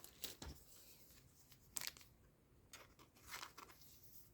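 Faint rustling of paper trading cards and foil pack wrapper being handled, a few soft brushes and crinkles spread through.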